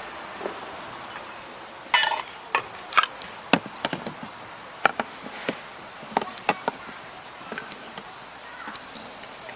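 Steady buzz of insects, with a string of sharp clicks and knocks on top, the loudest cluster about two seconds in.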